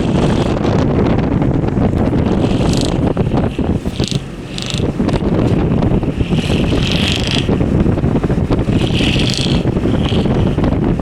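Wind buffeting the microphone in a steady low rumble, with several short, higher-pitched scratchy bursts scattered through.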